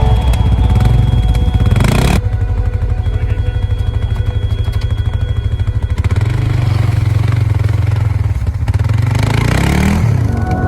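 ATV engine revving and pulling, its pitch rising twice, over a faint music track.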